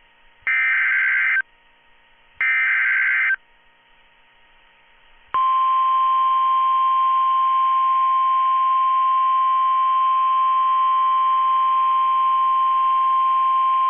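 NOAA Weather Radio emergency alert: two more bursts of SAME header data, a warbling digital screech about a second long each. After a short pause, about five seconds in, the steady single-pitch 1050 Hz warning alarm tone comes on and holds for about nine seconds. It signals that a warning, here a flood warning, is about to be read.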